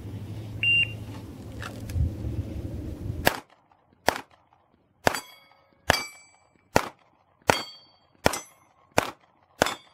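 A shot timer's short high beep sounds, and about two and a half seconds later come nine pistol shots, roughly one every 0.7 to 0.9 seconds. Several shots are followed by a brief ring of struck steel target plates.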